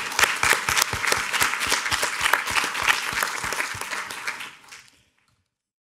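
Audience applauding: many hands clapping densely, fading away about five seconds in.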